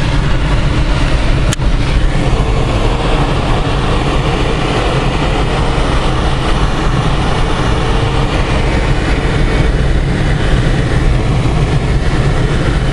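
Steady loud rush of airflow in a glider's cockpit in flight, with a single sharp click about a second and a half in.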